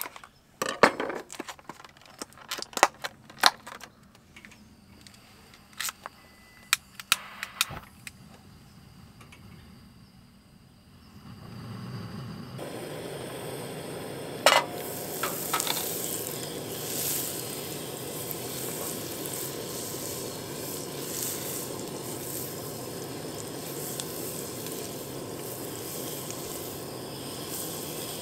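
Clatter of small hard objects, sharp clicks and knocks, for about the first twelve seconds, then a steady sizzling hiss sets in, with one sharp click soon after.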